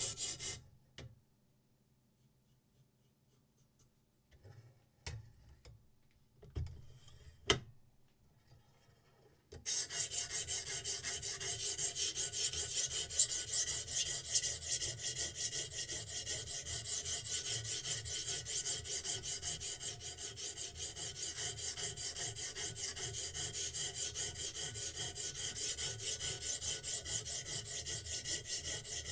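A knife blade being stroked across a sharpening stone in a steady run of rapid back-and-forth scraping strokes, starting about a third of the way in. Before that it is mostly quiet, with a few sharp clicks.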